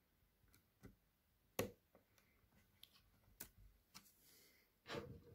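Faint, scattered clicks and taps of a small screwdriver on the screws and metal hinge of a laptop screen being refitted, the sharpest about one and a half seconds in.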